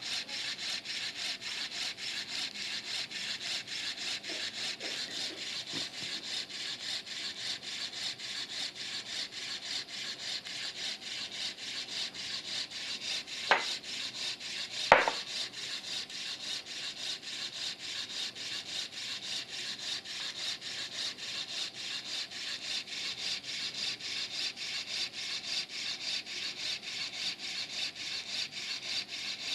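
Bodyguard 323 infusion pump's pumping mechanism running fast to prime the infusion line, a steady, rapid rhythmic rasp. Two sharp clicks about a second and a half apart come midway.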